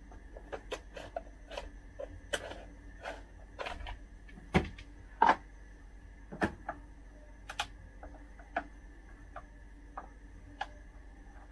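Light clicks and a few sharper knocks of a hand tool and fingers on a chainsaw's plastic top cover as it is opened to get at the spark plug. The loudest knocks come about four and a half, five and six and a half seconds in, with sparser light clicks after that.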